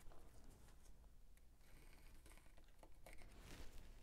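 Faint scratching and light ticks of a hobby knife blade cutting masking tape along a metal ruler, with small handling sounds.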